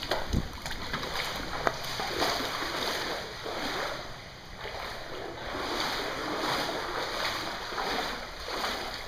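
Floodwater sloshing and splashing around a person's legs as he wades through it, a surge of water noise with each stride, about one a second.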